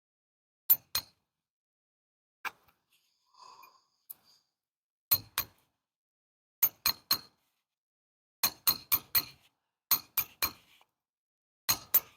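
Hammer tapping a cold chisel along a groove in a concrete slab: sharp metallic clinks in quick groups of two to four, with short pauses between the groups.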